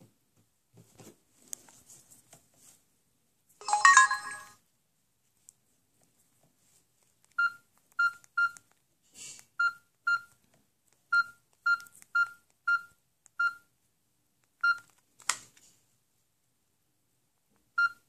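Samsung GT-B3310 mobile phone: a short, loud burst of electronic tone about four seconds in, then about a dozen short keypad beeps, all at the same pitch, at an uneven pace as the keys are pressed. There are a few light handling clicks between them.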